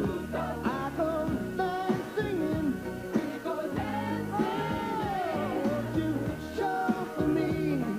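Rock-style song with a lead vocal, drums and band accompaniment.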